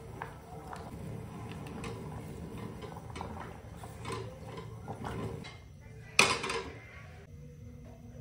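Spinach leaves pushed into a stainless-steel saucepan of water and turned with metal tongs: soft rustling with light clicks of the tongs against the pot. About six seconds in comes a short, loud burst of noise, lasting about half a second.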